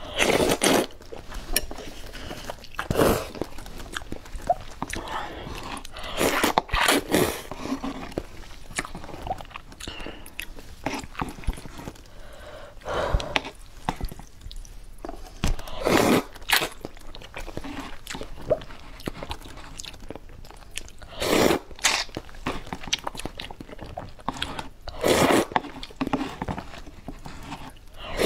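Close-up eating of hot and sour glass noodles: loud, wet slurps every few seconds as strands are drawn in from the cup, with chewing and mouth noises in between.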